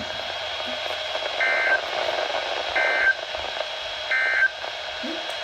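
Three short, buzzy two-tone data bursts, evenly spaced about a second and a half apart, over steady radio hiss. This is the Emergency Alert System end-of-message code (NNNN), sent three times at the close of a broadcast weather warning.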